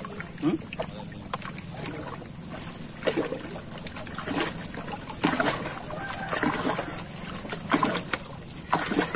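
Gill net being hauled by hand over the side of a wooden canoe, river water splashing and dripping off the wet mesh in irregular short splashes.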